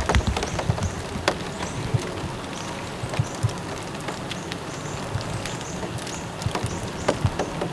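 Light rain pattering with irregular, scattered sharper taps of drops landing close by.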